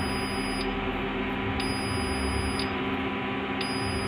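Steady electronic buzzer drone from a Honeywell fire alarm control panel, holding several pitches without break; the panel's fault light is lit, so it is the fault buzzer sounding for an active fault.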